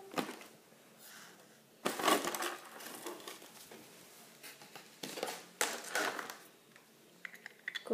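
Clear plastic toy packaging crinkling and crackling as it is handled, in a few short bursts about two, five and six seconds in.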